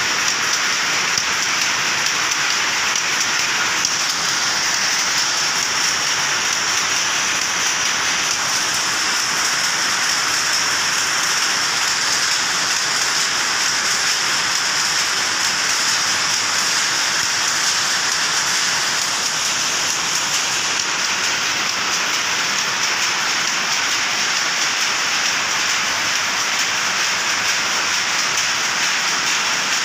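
Powerlooms running in a weaving shed: a loud, steady, dense clatter without pause.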